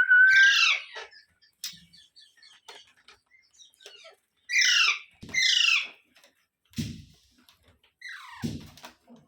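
Pet parrots calling: two harsh, downward-sweeping screeches about five seconds in and another near the end, with faint scattered clicks and rustles between.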